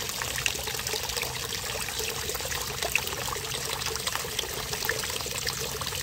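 Small pond fountain: water from a submersible pond pump's spout falling and splashing steadily onto the pond surface, a continuous trickling patter of droplets with a faint steady hum underneath.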